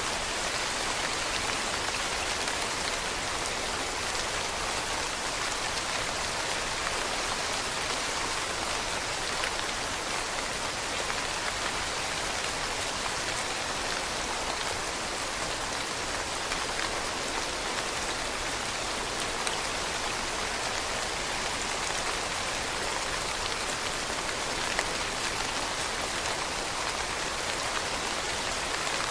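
Steady rain falling on leaves, an even hiss of many small drops with faint individual patters.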